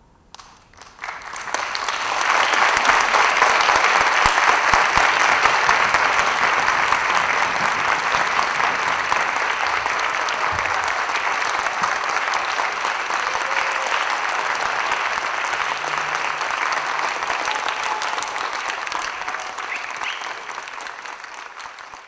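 Concert audience applauding at the end of a live orchestral performance: a few scattered claps about a second in, swelling quickly into full, steady applause that eases slightly near the end.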